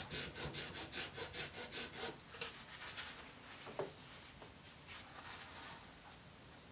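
A rag scrubbing back and forth on an oil-painted canvas, wiping wet paint away to lift out a light shape, at about five strokes a second; the strokes fade out after about two seconds.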